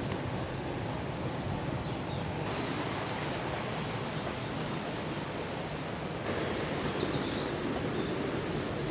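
Steady rushing of running water, with faint high bird chirps now and then.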